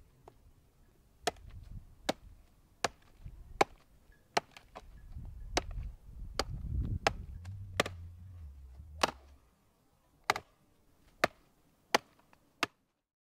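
Restored hook-bladed knife chopping into a dry wooden branch resting on a post stump: about fourteen sharp chops, roughly one a second, with a low rumble under the strikes in the middle.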